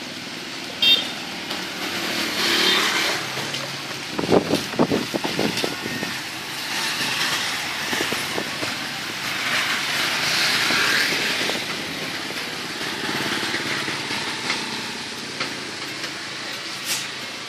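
Street traffic, with motorcycles passing. About four seconds in there is a run of clattering knocks lasting about two seconds, and there are sharp clicks just under a second in and near the end.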